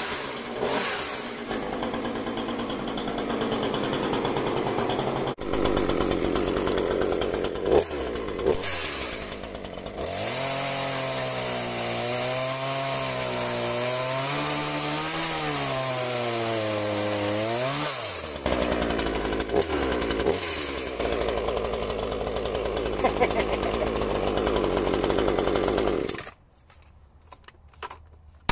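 McCulloch CS 35S two-stroke chainsaw, new and on its first run, running hard and cutting into a log, its engine pitch rising and falling as it works through the wood. The engine cuts off abruptly near the end.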